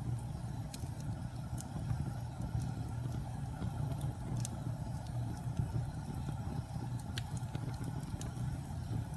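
Wood fire burning: a steady low rumble under scattered sharp crackles and pops, a few every second.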